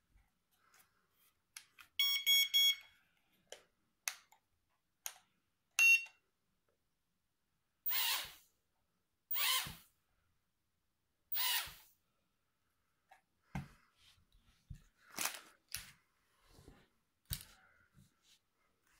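Eachine E10C mini quadcopter and its controller: a quick run of beeps about two seconds in and a single beep a few seconds later, then the drone's tiny motors and propellers whirring up three times in short half-second bursts. Light handling clicks and knocks follow near the end.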